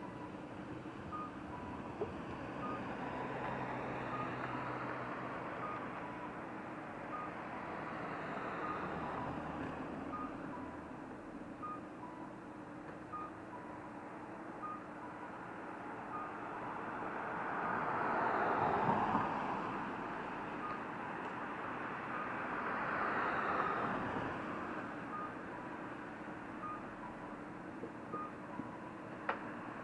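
Street traffic, with two vehicles passing louder about two-thirds of the way through, under a faint electronic beep repeating a little more than once a second.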